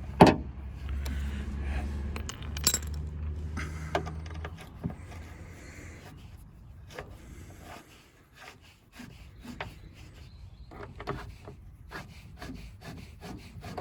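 Clicks, knocks and rattles of a car door lock module and its metal handle support being handled and fitted into the door, with a sharp click at the start and a steady low hum in the first few seconds.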